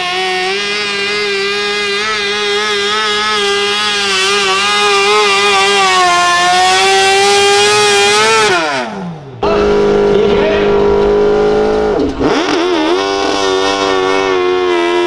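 Modified garden tractor engines running at high, steady revs under load while pulling a sled. Partway through, the first engine's note glides steeply down as it comes off the pull. After a cut, a second puller's engine runs at high revs, dips briefly once and recovers.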